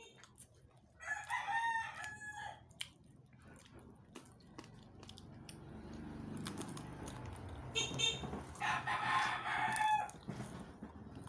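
A rooster crowing twice: a shorter crow about a second in and a longer one later on, with a low rumble swelling underneath in the second half.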